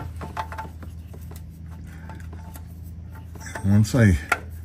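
Faint rubbing and small clicks of a pre-filled oil filter being handled and fitted by hand under the car, over a steady low hum. Near the end comes a brief, louder vocal sound that slides in pitch.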